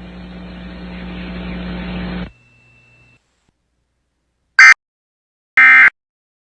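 Broadcast static hiss with a low hum that cuts off about two seconds in, then near silence. After that come the loud, harsh data bursts of an Emergency Alert System end-of-message code: a very short one, then a longer one about a second later, the start of the repeated bursts that close the alert.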